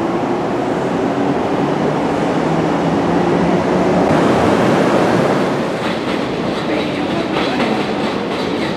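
Kintetsu electric commuter train running along a station platform: steady motor hum and wheel noise that swells about four seconds in, then a rapid clickety-clack of wheels over rail joints.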